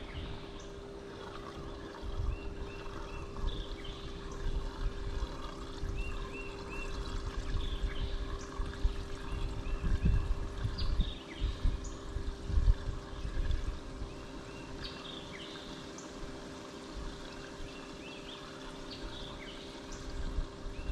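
Water trickling and lapping, over a steady low hum, with irregular low bumps and scattered short high chirps.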